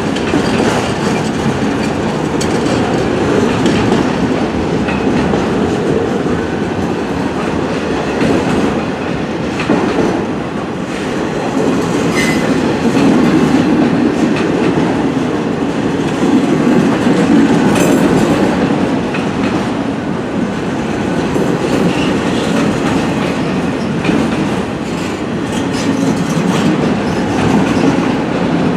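Freight train cars rolling past, a steady loud rumble with the clickety-clack of steel wheels over the rail joints.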